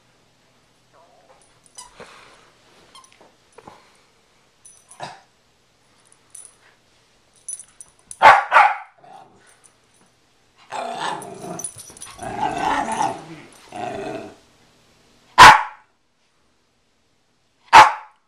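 Rat terriers at play: a quick double bark about eight seconds in, a few seconds of growling in the middle, then two single short barks near the end.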